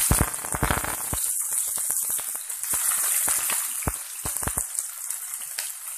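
Chopped onions sizzling in hot oil in a black iron kadai, a steady hiss with crackling pops that are thick in the first second and then come more sparsely.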